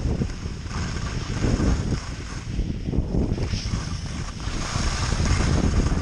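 Wind buffeting the camera microphone while skiing downhill, with the skis hissing and scraping over wind-packed snow.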